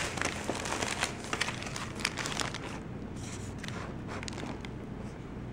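Thin paper sandwich wrapper crinkling and rustling as it is opened by hand and the sandwich is pulled out, with many quick crackles that are busiest in the first few seconds and thin out after that.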